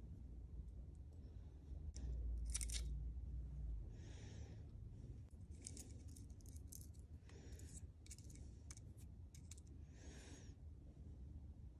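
Faint bench handling of a rear-shock damper: a low rubbing rustle of a microfibre cloth about two seconds in, then a string of light metallic clicks as small steel shims are slid onto the damper shaft. Two soft breaths through the nose fall in between.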